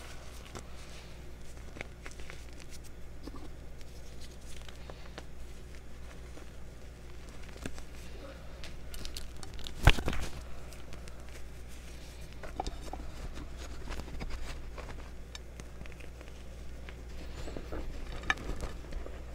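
Hands crushing and squeezing crumbly reformed gym chalk: soft crunching and crackling of powdery chunks breaking apart, with one sharp crack about halfway through, over a low steady hum.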